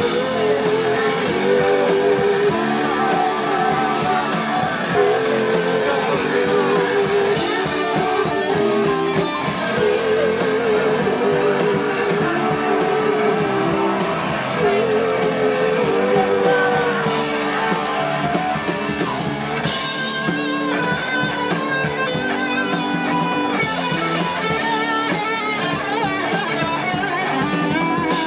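Live rock band playing an instrumental stretch: electric guitar repeating a short wavering riff over drums and bass, with higher guitar lines coming in about twenty seconds in.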